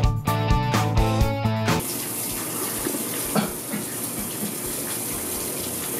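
Guitar music that cuts off suddenly a little under two seconds in, followed by a shower running: an even spray of water.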